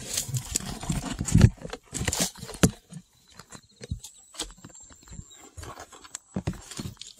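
A mole digging into loose soil: irregular scratching, rustling and crumbling of earth with sharp little knocks, busiest in the first three seconds and again near the end.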